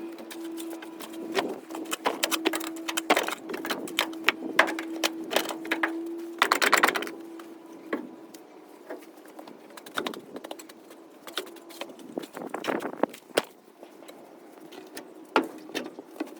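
Irregular knocks and clatter of wooden boards being handled and fitted to a shed frame, over a steady hum that fades out about three quarters of the way through.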